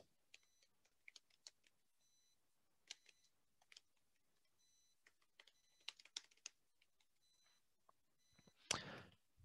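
Very faint typing on a laptop keyboard: scattered soft key clicks, with a brief hiss near the end.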